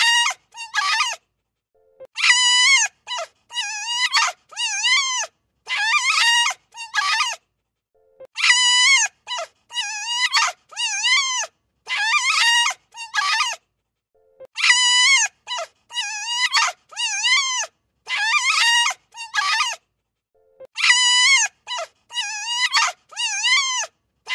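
Wolf whining and yipping: short, high whimpers that rise and fall in pitch, with brief silences between them. The same run of calls repeats about every six seconds.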